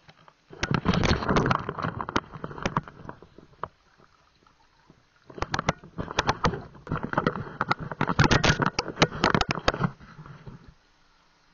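Water splashing and sloshing right at the microphone as the camera moves through shallow water, crackly and close. It comes in two spells: a short one starting about half a second in, and a longer one starting about five seconds in.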